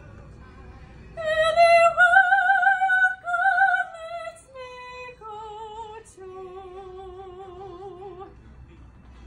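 A woman singing solo in an operatic style with wide vibrato: a loud high note held for about three seconds, then a few softer, lower held notes stepping down before she stops near the end.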